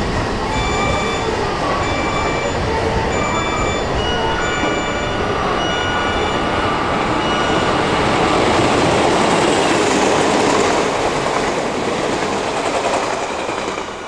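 Odakyu 60000 series MSE Romancecar electric train passing through a station at speed. The rolling wheel and body noise swells to its loudest about eight to eleven seconds in, then fades. Through the first half an electronic beep repeats about once a second.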